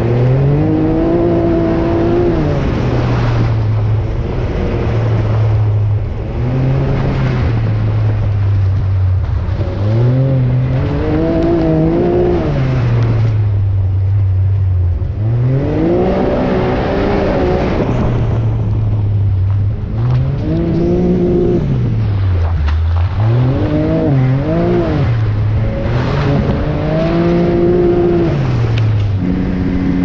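Off-road ATV or UTV engine under riding throttle, its pitch climbing and falling every few seconds as it is revved and let off, about seven surges in all.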